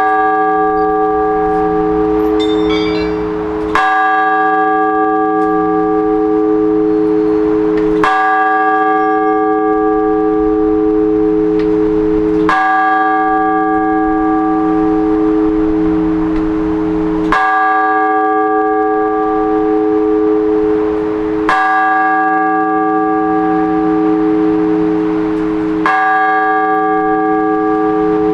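A single church bell struck slowly and evenly, six strokes about four seconds apart, each ringing on into the next. These are the measured strokes of the Orthodox blagovest, rung on one bell to call people to a service.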